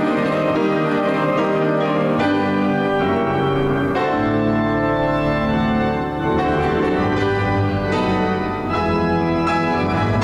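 Organ postlude: music of sustained chords over a low held bass line, the chords changing every second or so.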